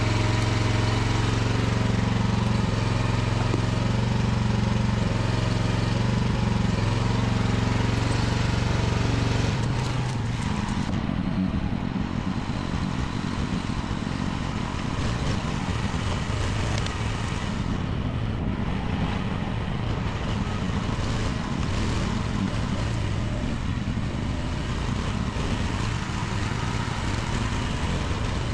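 Mini excavator engine running steadily. About ten seconds in, the sound changes to a rougher, noisier running and drops slightly in level.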